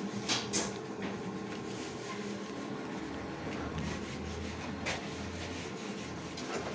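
Steady low machine hum, with two light knocks, about half a second in and near five seconds.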